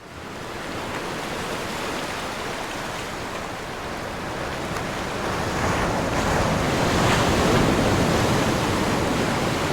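Steady roar of rushing water from a waterfall. It fades in at the start and grows a little louder about halfway through.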